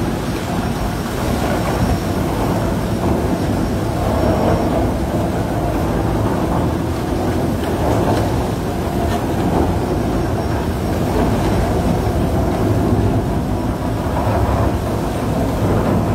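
Tunnel boring machine's cutterhead turning against the rock as it breaks through into the shaft: a loud, steady grinding rumble.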